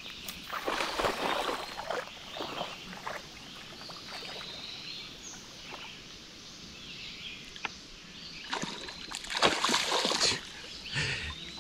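A Rottweiler wading and splashing through shallow lake water, irregular sloshing strokes that come heaviest in the first few seconds and again about eight to ten seconds in.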